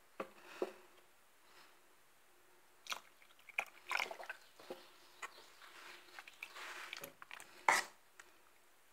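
A spoon stirring thick wheat-berry porridge (herbel) in a pot, making scattered wet squelches and scrapes, with a sharper knock against the pot near the end.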